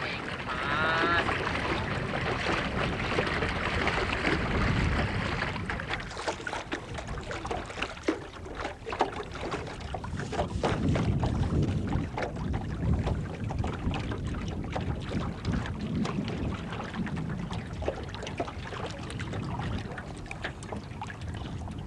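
Small fishing boat under way: a steady rumble of wind buffeting the microphone, with water splashing and slapping against the hull throughout.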